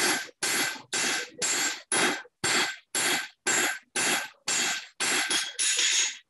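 Hand hammer striking red-hot steel on an anvil, spreading the stock out thin. There are about two blows a second, each with a ringing tone after it. The blows come a little quicker near the end, then stop suddenly.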